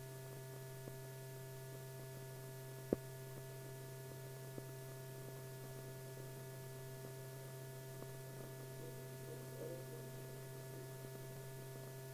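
Steady low hum with faint hiss and scattered clicks and pops, the background noise of an old film soundtrack with no speech or music. One sharp click, the loudest, comes about three seconds in.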